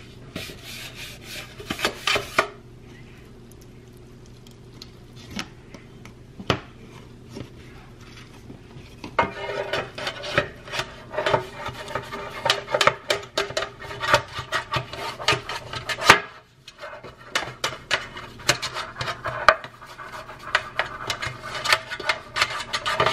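A hand rubbing quickly around the inside of a dark non-stick metal baking pan, greasing it, in fast repeated strokes with a squeak to them, starting about nine seconds in and pausing briefly around sixteen seconds. A few knocks and clatters come near the start.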